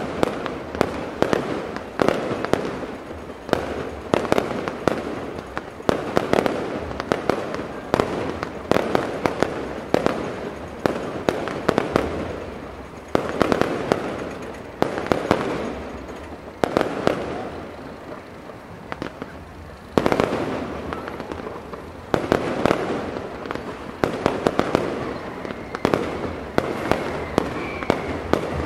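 Aerial fireworks display: a dense run of shell bursts going off every second or two, each bang trailing off into crackling.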